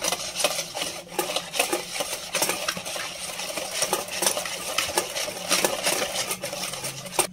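Wire balloon whisk beating a thick yogurt mixture in a plastic bowl, its wires clicking and scraping against the bowl in quick, uneven strokes.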